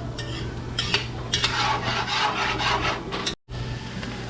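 A spoon stirring and scraping onions sautéing in butter in a cast-iron black pot, in repeated strokes against the pot.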